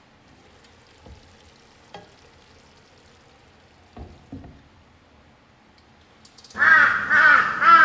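Beef frying in a pan under a glass lid with a faint steady sizzle, and a few light clinks as the lid is lifted and set back. Near the end come three loud, harsh crow-like caws in quick succession.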